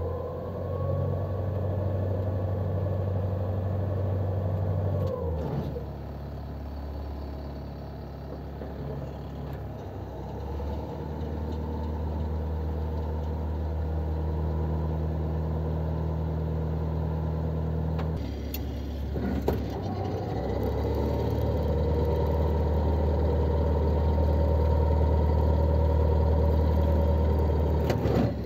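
Motorboat engine running at low speed; it is throttled back about five seconds in and opened up again about twenty seconds in, with a few clicks in between.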